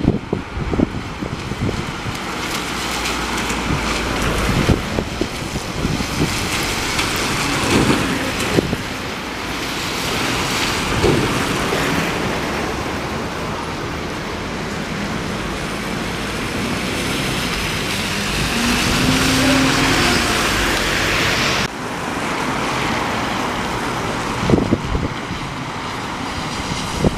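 Alexander Dennis Enviro400 MMC double-decker bus running as it pulls in to a stop on a wet road, its engine and tyre hiss mixed with street traffic and heavy wind noise on the microphone. About three-quarters through, the sound cuts abruptly to quieter street traffic.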